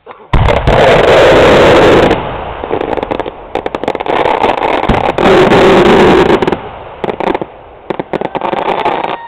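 Aerial firework shells launching and breaking. A sudden loud blast comes about a third of a second in, followed by two long, loud stretches of rushing noise and many sharp crackles and pops that thin out near the end.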